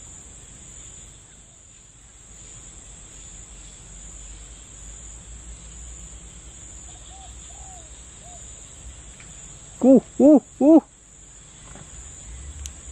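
Steady high-pitched chirring of crickets or other insects, with a bird hooting three times in quick succession about ten seconds in, a few fainter calls shortly before.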